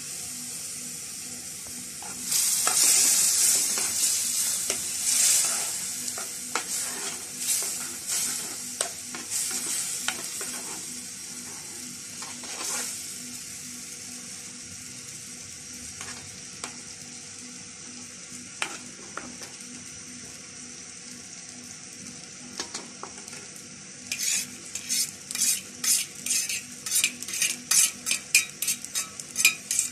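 A metal spoon stirring and scraping through melted butter and a white dairy mix in a nonstick pan on the stove, with sizzling in the hot butter. The loud hiss comes in the first few seconds, and near the end the spoon scrapes in quick strokes, about three or four a second.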